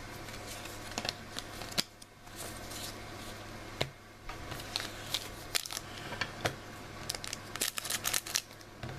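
Trading cards being handled: a run of light, irregular clicks, taps and snaps as the cards are flipped, squared up and set down, over a steady low hum.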